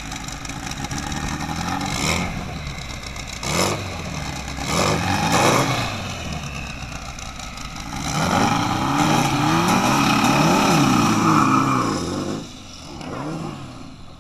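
Drag-racing engine revved hard again and again at the start line, its pitch climbing and falling in quick revs, with a longer run of rapid back-to-back revving about two-thirds of the way through that drops off suddenly near the end.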